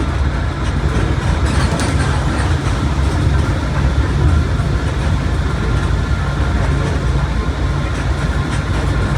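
Mercedes-Benz OF1721 BlueTec 5 bus under way: steady diesel engine drone with tyre and road noise, and a faint whine above it.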